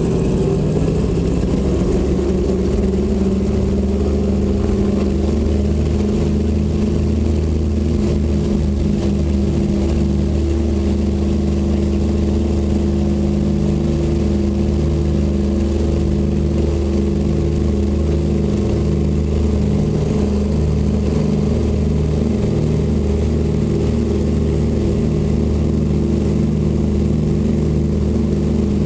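Douglas DC-3's twin radial piston engines and propellers running steadily, heard inside the cabin as a loud, even, low drone.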